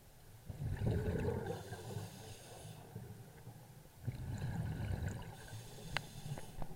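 Scuba diver breathing through a regulator underwater: two breaths, each a rush of exhaled bubbles with a hiss, the second starting about four seconds in. A short sharp click near the end.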